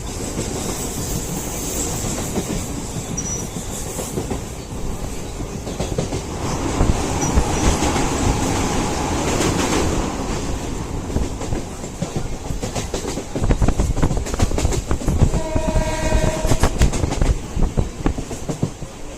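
Train running along the track, a steady rumble with wheels clicking over rail joints that grows louder and more clattery in the second half. About two-thirds of the way through, a train horn sounds once for about a second and a half.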